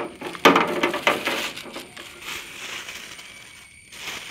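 Pebbles dropped by hand into a clear plastic tub holding water: a sharp splash and clink about half a second in, then the water and stones settling and fading over the next couple of seconds.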